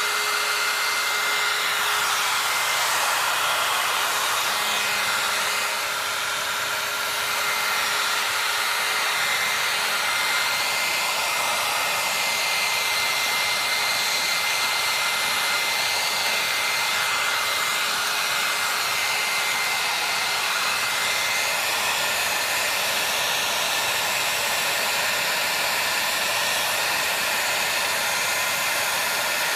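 Steady rushing noise of an electric blower running without a break, with faint steady whines over it.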